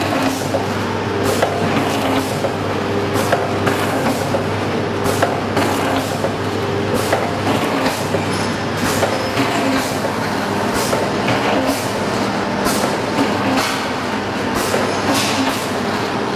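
Jelly and liquid packaging machine running, with a steady low hum and a sharp clack repeating roughly once a second as it cycles.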